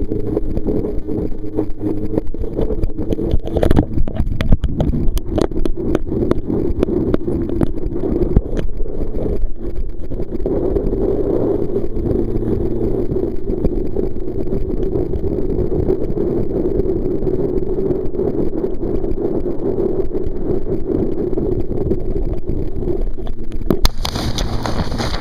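Steady rush of wind and water on a life-jacket-mounted camera while a kneeboarder is towed at speed behind a speedboat, with scattered knocks and rubbing against the microphone. Near the end a sharp knock comes, and the sound turns to a brighter hiss of spray.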